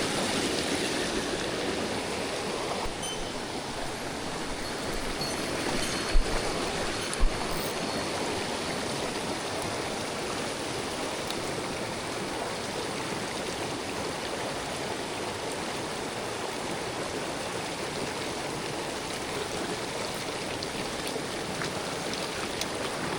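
A mountain stream's water rushing steadily over rocks, with two short low knocks about six and seven seconds in.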